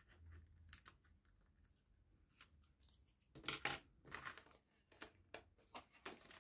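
Faint paper-craft handling: the backing peeled off a strip of double-sided tear and tape, then cardstock lifted and folded over, heard as scattered light rustles and taps, loudest about three and a half seconds in.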